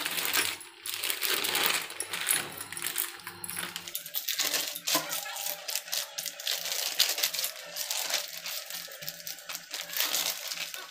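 Polythene sheet crinkling and rustling continuously with many small crackles as hands press, rub and flip soft cashew dough wrapped inside it.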